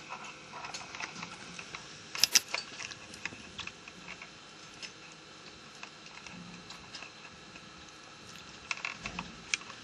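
Small plastic clicks and handling noise as sensor cables with modular plugs are worked around the plastic transmitter shelter of a Davis Vantage Pro2 weather station. A quick cluster of sharp clicks comes about two seconds in, and a few more near the end.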